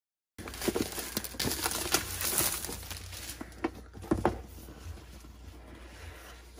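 Clear plastic shrink-wrap crinkling as it is peeled off a cardboard product box, starting about half a second in and loudest for the first few seconds. It then fades into lighter rustling and a few knocks of hands on the box.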